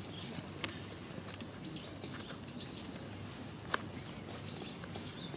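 Disposable wooden chopsticks burning in a small aluminium-can fire, crackling with a few sharp pops, the loudest nearly four seconds in. Small birds chirp faintly in the background.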